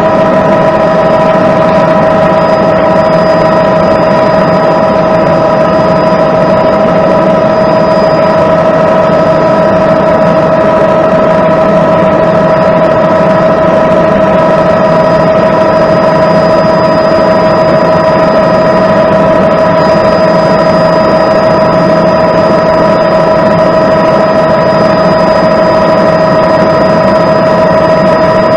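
Tour helicopter in cruise, heard from on board: loud, unchanging engine and rotor noise with a steady high turbine whine made of several held tones.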